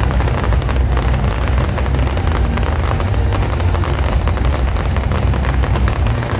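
Fireworks going off in a dense barrage: rapid, continuous crackling over a steady low rumble of bursts.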